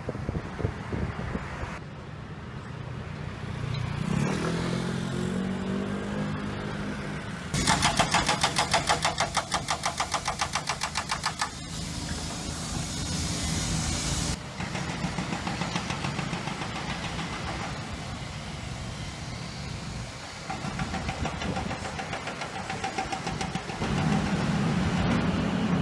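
Vehicles passing on a night street, then an excavator-mounted hydraulic breaker hammering rapidly at asphalt for about seven seconds, about a third of the way in. Engine and traffic noise carries on after it stops.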